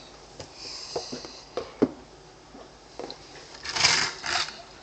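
Handling noise: a few light clicks and knocks, then a short rubbing scrape in two pulses near the end.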